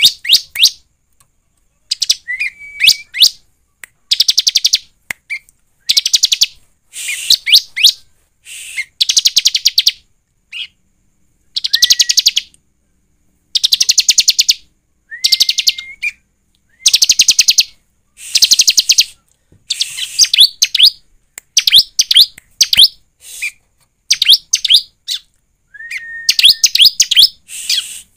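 Bar-winged prinia (ciblek) singing: bursts of very rapid, high trilled notes about a second long, repeated again and again with short pauses, some starting with a short flat whistle that sweeps up into the trill.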